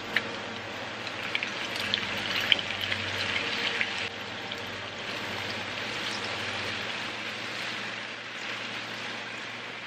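Olive oil sizzling in a frying pan as fresh spinach is dropped onto frying sardines and cherry tomatoes: sharp crackles and spits over the first four seconds, settling into a steady sizzle.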